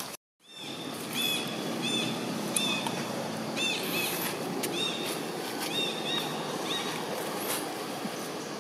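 Outdoor ambience: a steady background hiss and rumble, with a run of short, high chirping calls repeating irregularly from about a second in. The sound cuts out briefly at the very start and fades back in.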